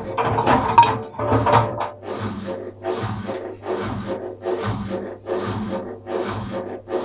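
ATLANT 50U101 washing machine on a wash cycle with a load of paint rollers and brushes: the drum turns and the wet load swishes and rubs in an even rhythm of about two strokes a second, over a low motor hum.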